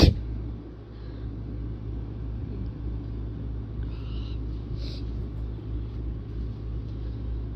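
The tail of a sneeze right at the start, then a steady low rumble in the background with two faint breaths about four and five seconds in.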